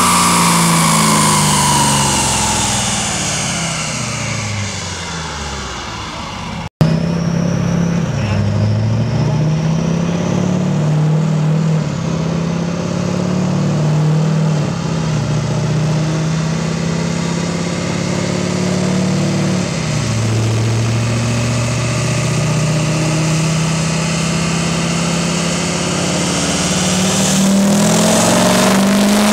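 Duramax turbo-diesel V8 in a GMC Sierra on a chassis dyno: first the engine and rollers wind down after a full-throttle pull, pitch falling. After a brief dropout about seven seconds in, the diesel runs at a fast idle that drops lower about two-thirds through, then revs up sharply near the end as the next pull begins.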